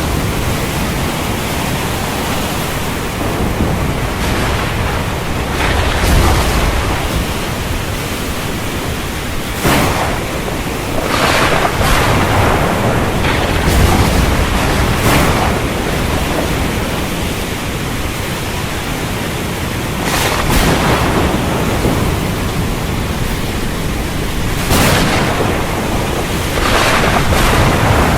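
Storm wind and surf over the sea: a steady roar with louder gusts or wave rushes surging up every few seconds.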